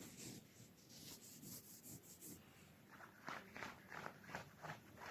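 Near silence with faint rustling, which about three seconds in turns into a soft rhythmic rasping about three times a second.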